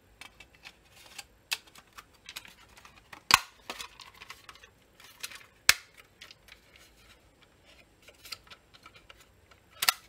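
Plastic housing of a Siemens S7-300 PLC CPU being handled and snapped back together: scattered light clicks and rattles, with sharp snaps about three seconds in, just before six seconds, and near the end.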